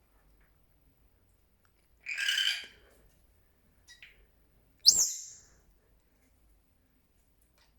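Senegal parrot (youyou) calling: a short harsh call about two seconds in, a faint brief one around four seconds, then a loud, sharp whistle sweeping upward just before five seconds.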